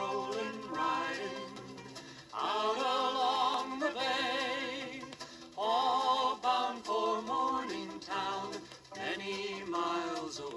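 A vinyl record playing on a Retrolife UD002 record player through its built-in speakers: a song with a singer holding wavering notes in phrases.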